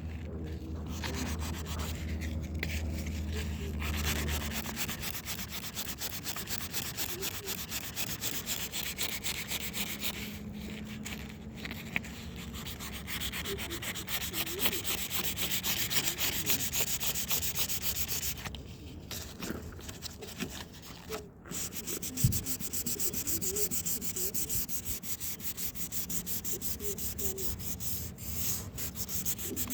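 Sandpaper rubbed by hand over a van's fender flare in rapid back-and-forth strokes, smoothing down built-up layers on the flare, with a few short pauses and a single knock about two-thirds of the way through.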